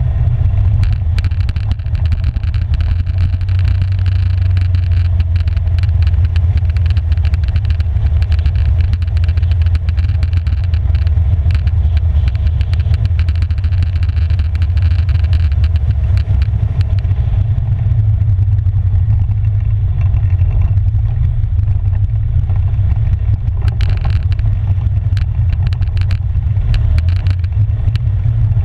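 Polaris 570 EPS ATV's single-cylinder engine running steadily as the quad rides a gravel trail, a dense low rumble with scattered knocks and rattles from the rough ground.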